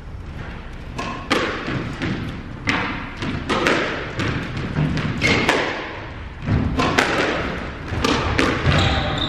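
Squash rally: the rubber ball cracking off rackets and the court walls, sharp hits coming about once or twice a second, each ringing on in the hard-walled court. A few short high squeaks come near the end.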